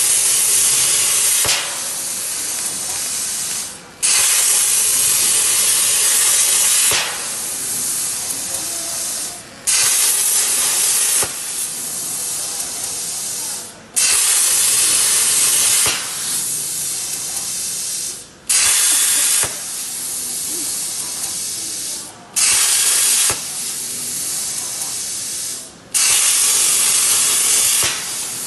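105-amp Hypertherm plasma torch on a CNC table cutting steel plate: a loud hiss that starts abruptly, drops to a softer hiss after a second or two, then stops. This repeats about every four to five seconds, once per short cut.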